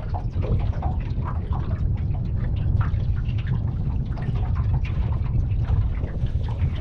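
Small waves lapping and slapping against the hull of a small aluminium boat in irregular little splashes, over a steady low rumble of wind on the microphone.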